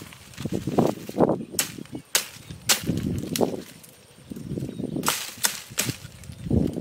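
A string of sharp cracks and lower knocks at irregular intervals, with a quieter gap near the middle.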